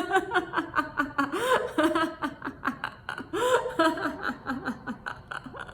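A woman laughing deliberately, as in laughter yoga: rapid 'ha-ha' syllables in about three runs, each run falling in pitch.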